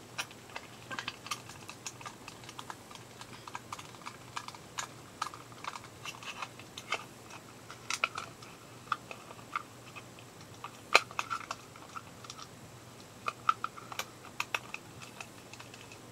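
Irregular small clicks and taps of a small screwdriver and tiny metal screws being worked while starting the mounting screws of a replacement motor in an EEW Nano electric spinning wheel, with a sharper click about eleven seconds in.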